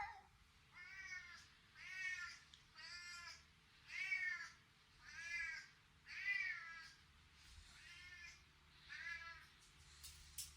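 Domestic cat meowing repeatedly: eight short calls about a second apart, each rising and then falling in pitch.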